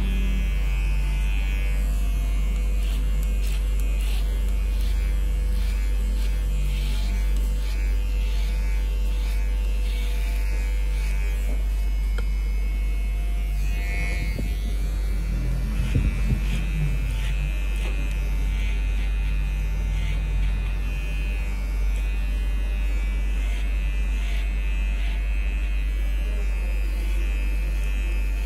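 Gold-bodied electric hair clipper running with a steady buzz while it cuts short hair over a comb. There are a few brief knocks about halfway through.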